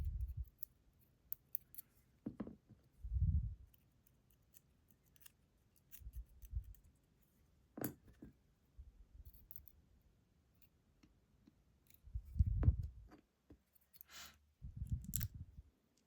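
Small metallic clicks and ticks of pins and springs being worked out of an ASSA Guideline lock cylinder with small tools, with several dull low thumps of the lock and tools being handled.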